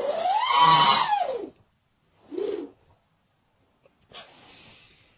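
A person snoring loudly: a long snore with a whistling pitch that rises and then falls, a short second snore a little after two seconds in, then a faint breathy exhale near the end.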